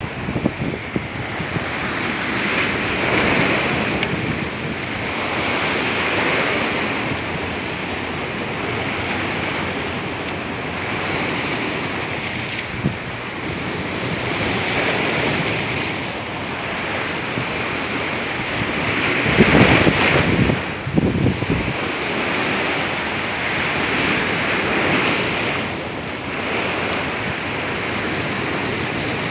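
Sea surf breaking against shoreline rocks, surging every few seconds, with wind buffeting the microphone. The loudest surge comes about two-thirds of the way through.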